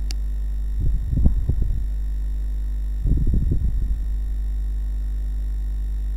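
Steady electrical mains hum with a stack of overtones, broken twice by short clusters of low, dull knocks: about a second in and again about three seconds in.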